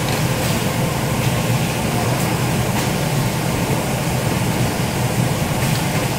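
Thermoforming blister packaging machine running steadily: a continuous low mechanical hum, with a few faint clicks.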